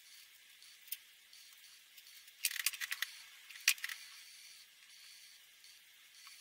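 Plastic clicks from handling felt-tip alcohol markers as one marker is put down and another taken up: a single click about a second in, a quick cluster of clicks about two and a half seconds in, and one sharp click shortly after, over a faint hiss.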